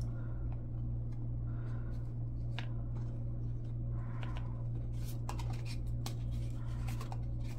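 Trading cards and a small cardboard box being handled: scattered light clicks and rustles as cards slide back into the box, over a steady low hum.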